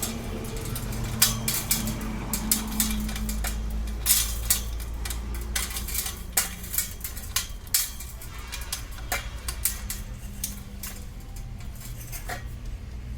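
Metal tools and fittings clinking and tapping in many sharp, irregular clicks while electrical cable connections are being made, over a steady low hum.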